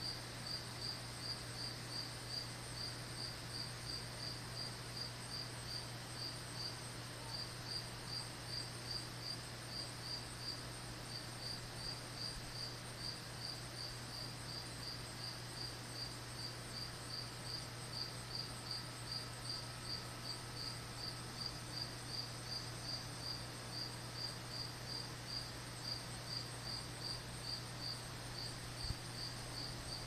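Crickets chirping: a regular high-pitched chirp repeating about two to three times a second, pausing briefly now and then, over a steady low hum.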